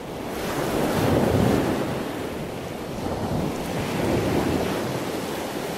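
Wind buffeting the camera's microphone: a rushing noise that swells about a second in and again about four seconds in.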